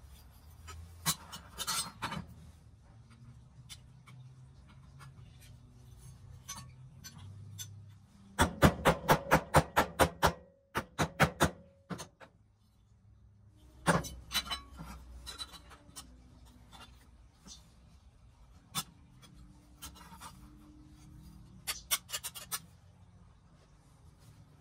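Die-cast metal toy truck body parts being handled and knocked together: scattered sharp metallic clicks and taps, with a quick run of about a dozen taps about a third of the way in, a single loud knock a little past halfway and a short fast rattle of clicks near the end.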